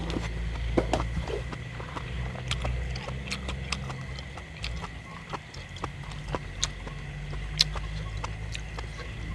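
A person eating close to the microphone: chewing with wet lip smacks and scattered sharp clicks. A low steady hum and a faint, steady high tone run underneath.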